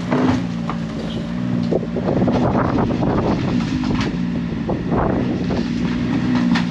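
Snowmobile engine running at low speed as the sled drives up the ramp into an enclosed trailer, with a series of knocks and clatters from the track and skis on the trailer floor between about two and five seconds in.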